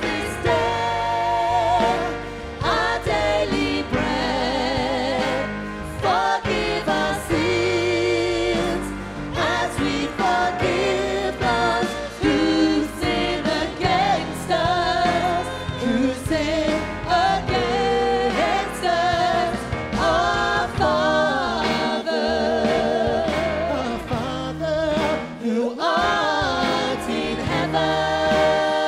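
Live worship band playing a song, with a woman singing the lead with vibrato over acoustic guitar, keyboard and drums.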